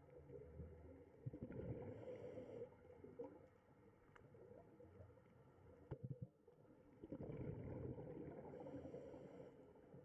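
Faint, uneven low rumbling and gurgling of aquarium water, with a few soft clicks.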